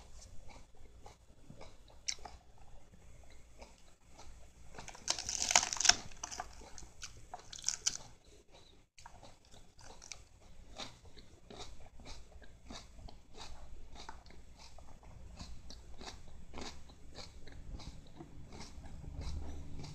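Siamese cat crunching and chewing lettuce leaves: a steady run of quick, crisp bites, with a louder crackling spell about five seconds in.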